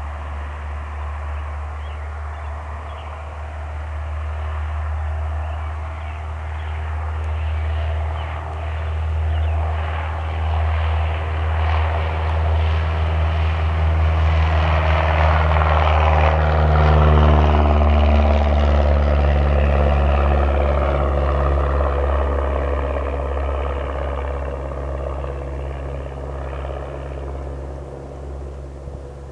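Cessna 172R Skyhawk's four-cylinder engine and propeller at full takeoff power. It grows louder during the takeoff roll and liftoff, and its pitch drops as it passes close by. It then fades as the plane climbs away.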